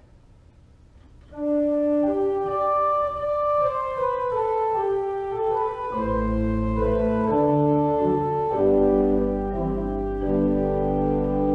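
Organ playing the introduction to a hymn: a melody of held notes starts about a second in, and deep bass notes join about halfway through.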